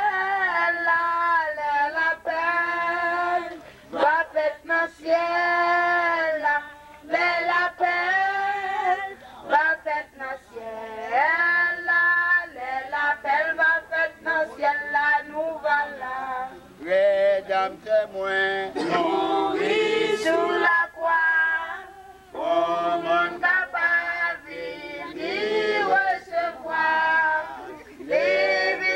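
A small group, mostly women's voices, singing together in long held sung phrases.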